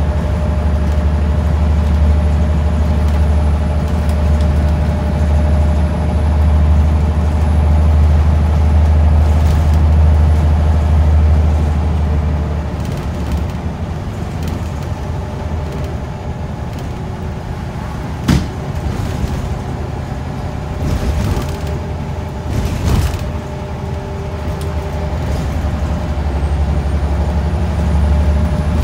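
Scania L94UB bus heard from inside the cabin: its nine-litre five-cylinder diesel drones under load, then eases off about twelve seconds in. A sharp click and two brief hisses come in the quieter stretch, and the engine pulls again near the end.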